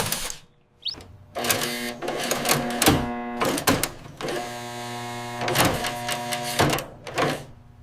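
Mechanical sound effect: a buzzing, printer-like whir with clicks and clatter, in two stretches with a short break between them.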